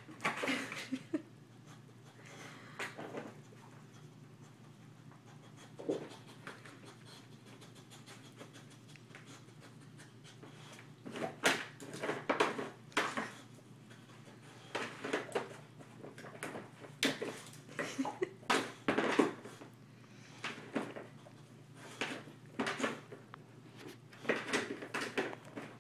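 A dog rummaging through a toy box, toys knocking and scuffing against each other in irregular clusters: a few at first, then frequent from about eleven seconds in. A low steady hum runs underneath.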